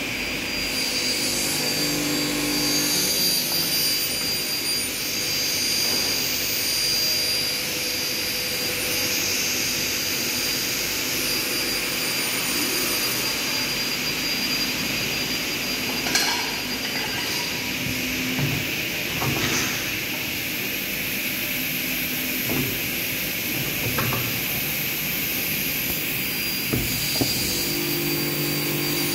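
Steady hiss and hum of workshop machinery, with a few sharp knocks in the second half.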